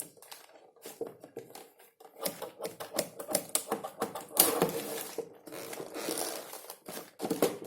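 Packaging being cut and opened by hand: a run of quick clicks, scrapes and rustles, sparse for the first two seconds and much busier after.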